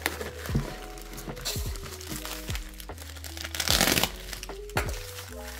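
Plastic poly mailer bag crinkling and being torn open by hand, with the loudest rustling burst about four seconds in, over background music.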